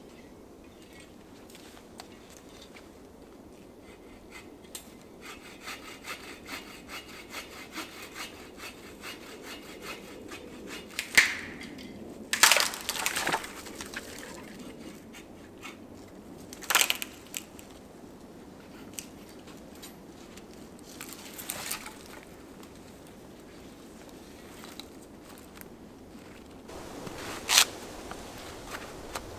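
A hand saw cutting into wood with quick, even strokes for about five seconds, followed by several loud, sharp cracks of wood splitting and snapping.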